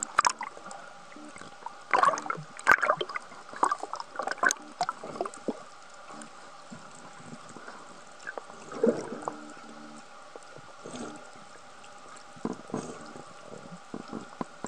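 Water sloshing and gurgling around a camera held just under the surface, with scattered splashes, knocks and bubbling as a diver handles a speared fish, over a faint steady hum.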